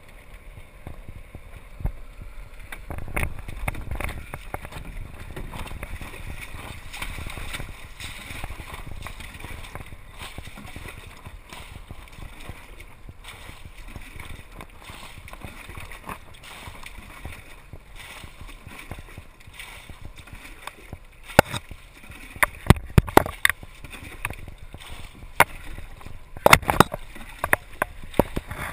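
Water lapping and sloshing around a small sailing dinghy, with wind on the microphone. In the last several seconds a run of sharp knocks stands out as the loudest sounds.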